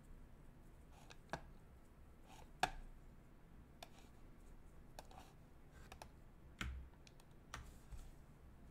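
Faint, scattered clicks and taps of a computer keyboard and mouse, single strokes spaced irregularly about a second apart, one sharper than the rest about two and a half seconds in.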